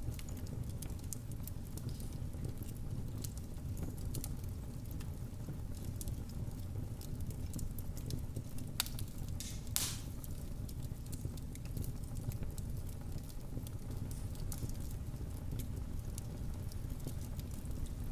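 Wood fire burning in a fireplace: a steady low rumble of flames with frequent small crackles and pops, and a couple of louder snaps about nine and ten seconds in.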